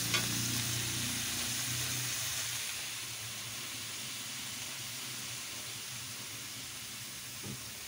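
Shrimp simmering in Sprite in a wok, hissing and sizzling steadily. The hiss eases a little about three seconds in. A light knock comes near the end.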